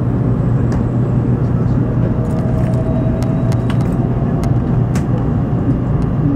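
Cabin noise of an N700 series Shinkansen train running on the line: a steady low rumble with an even roar over it, and a few faint ticks.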